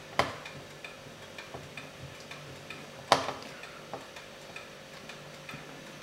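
Small screwdriver driving a tiny screw into a laptop's metal heat-pipe bracket, with two sharp metallic clicks, one near the start and one about three seconds in. Under them runs a faint, even ticking, about three ticks a second.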